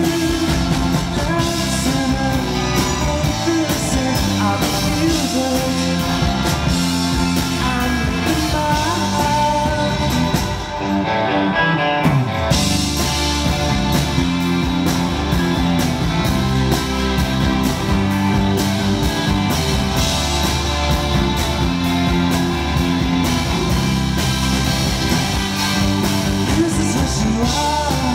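A psychedelic rock band playing live through a stage PA, with electric guitar, bass guitar, drums and a singer's voice. About eleven seconds in, the cymbals and high end drop out for about a second in a short break, then the full band comes back in.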